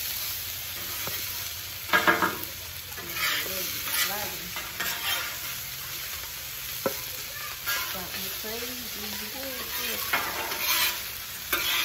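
Homemade fried rice sizzling steadily as it fries, stirred on the hot pan with sharp scraping clacks of the utensil every second or two, the loudest about two seconds in.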